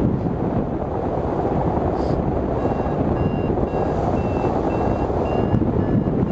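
Wind rushing over the microphone of a hang glider in flight. From about two and a half seconds in, a variometer beeps about twice a second; its steady beeping signals that the glider is climbing in lift.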